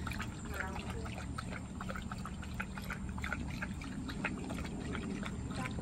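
A German shepherd lapping water from a bowl: a run of quick, uneven wet laps.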